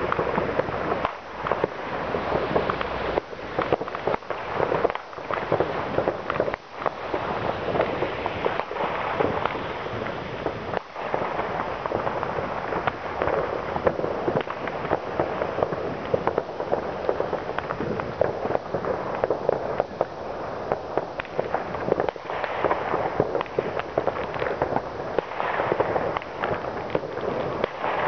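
Many fireworks and firecrackers going off at once: a dense, unbroken crackle of overlapping bangs and pops.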